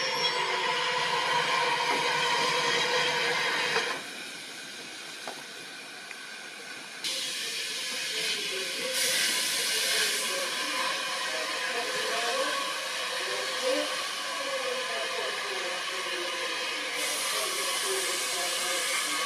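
Bulleid Light Pacific steam locomotive 34092 City of Wells: a steady squeal as the train runs slowly into the platform, then, once standing, steam hissing from the engine, setting in about seven seconds in and swelling twice.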